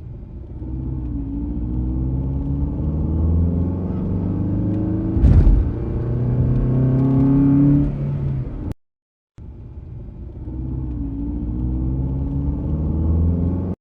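A motor vehicle's engine running while driving, its pitch slowly rising and falling, with a sharp knock about five seconds in. The sound cuts out briefly near the middle and then the engine sound resumes.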